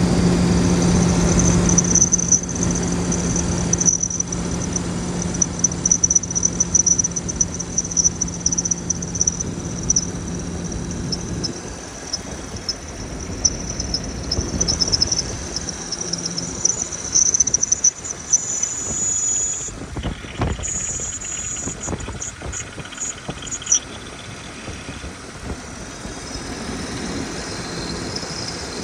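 BMW M52TU straight-six engine running, with a high-pitched squeak and whistle chirping on and off over the engine hum, sometimes in rapid short bursts. The cause of the squeak and whistle is unknown.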